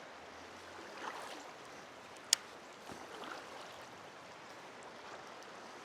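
Steady, quiet rush of flowing river water, with one sharp click a little over two seconds in.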